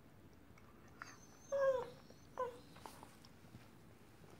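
Entlebucher mountain dog making two short whining 'talking' vocalizations about a second apart, the second a quick falling note.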